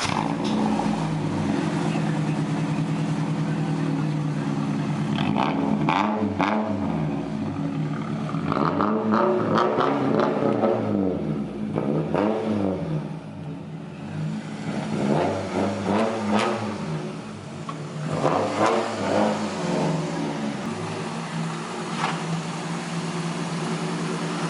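Car engine idling steadily, then revved up and down repeatedly from about five seconds in.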